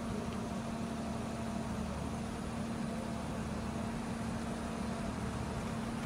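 An engine running steadily: a constant drone with a strong hum that neither rises nor falls.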